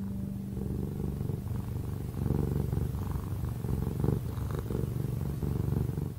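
A cat purring, a steady fast low rumble that grows a little stronger about two seconds in.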